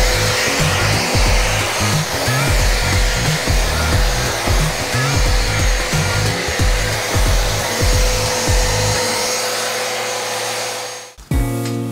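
Electric orbital sander running steadily, sanding the willow blade of a cricket bat, under background music. The sander noise cuts off suddenly near the end.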